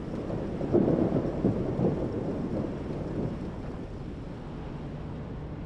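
Wind buffeting the microphone over a steady low rumble, with a louder gust from about a second in that dies away after about two seconds.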